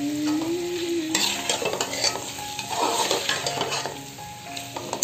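A perforated steel spoon stirring and scraping chicken, green peppers and onion around a stainless steel pot in a repeated, uneven rhythm. The thick tomato masala sizzles underneath.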